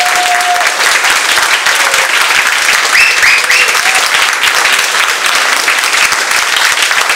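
Audience applauding loudly and steadily, with three short high calls from the crowd about three seconds in.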